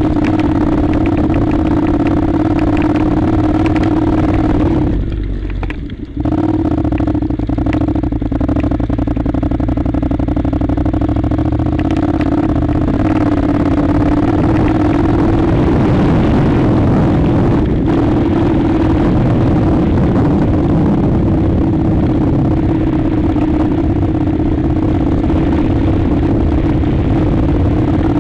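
Honda NC700's 670 cc parallel-twin engine running steadily as the motorcycle climbs a gravel track, with rattling over the loose stones. The engine sound drops briefly about five seconds in, then picks up again at a lower pitch for several seconds before settling back.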